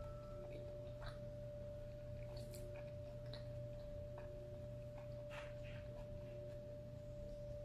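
Mouth sounds of a person chewing food with her mouth closed: soft, irregular small clicks. A constant steady tone and a low hum run underneath throughout.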